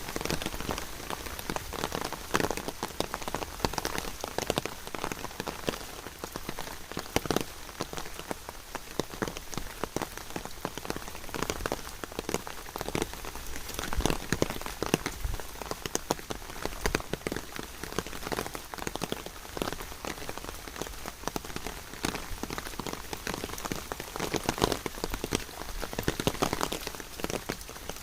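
Steady rain, with many separate drops striking close by in quick, irregular succession.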